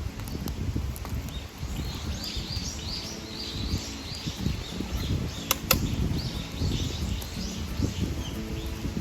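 A bird singing a run of quick falling chirps over an uneven low rumble, with two sharp clicks a little past halfway.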